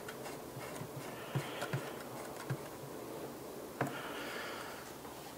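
A few light clicks and taps from hands fitting a small antenna onto the RF connector of a circuit-board alarm communicator, with quiet handling noise between them.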